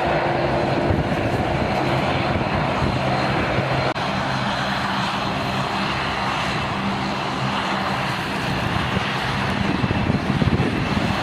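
Airbus A330-300 jet engines running, a steady rushing noise with a low hum underneath, briefly dipping about four seconds in.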